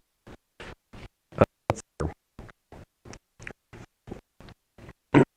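Broken-up lecture recording: the sound comes through only in short choppy fragments, nearly three a second, with dead silence between them, a recording fault.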